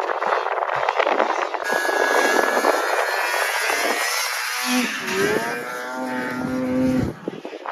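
Snowmobile engine revving: a rushing noise at first, then a clear engine note that falls in pitch in the middle. It holds steady for a couple of seconds and breaks off near the end.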